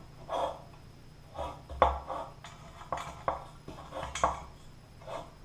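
Metal light-fixture pan and its socket wiring clinking and rattling as the wires are fed through it: a run of irregular light knocks and scrapes, the sharpest near the middle.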